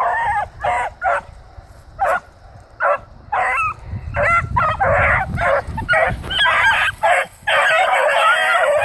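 Several young hounds baying in the brush: separate short bays at first, then several voices overlapping into a steady chorus from about halfway through.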